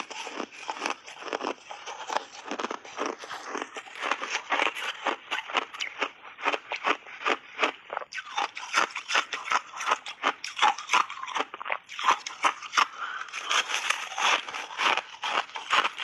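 Refrozen shaved ice being bitten and chewed close to the microphone: a steady run of crisp crunches, about two to three a second.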